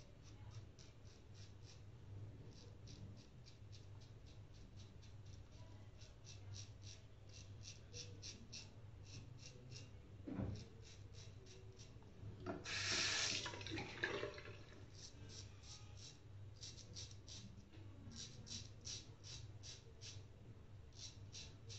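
Double-edge safety razor rasping through lathered stubble in quick, short strokes, heard as faint clusters of scratches several a second. About halfway through comes a louder rush of running water lasting about a second and a half.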